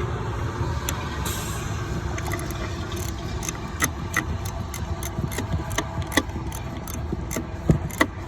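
Ratchet wrench clicking in short, irregular runs while a bolt is loosened, starting about three seconds in. Underneath is a steady low rumble like an idling engine.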